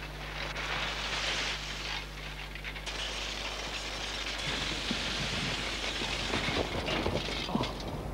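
Bicycle rolling along a gravel road: a steady rushing of tyres on gravel for the first half, then irregular small knocks and rattles in the second half.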